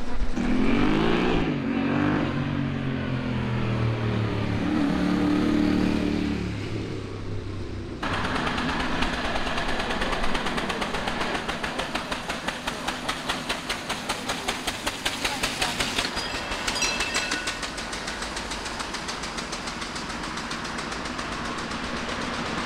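For the first few seconds a vehicle's engine revs up and down. About eight seconds in the sound changes abruptly to the quick, even putt-putt beat of a veteran car's engine running slowly as it comes up the road.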